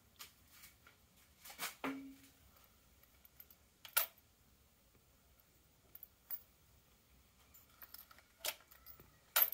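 Keys jangling and a few sharp clicks as the ignition key of a Royal Enfield Himalayan is handled and turned on, just before starting; the loudest click comes near the end.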